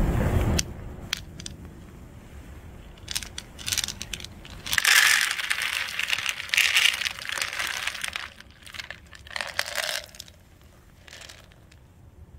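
Dry cat kibble poured from a plastic cup into a clear plastic tray, rattling and crackling in several bursts, loudest about five to seven seconds in. A brief rumble of wind on the microphone comes at the very start.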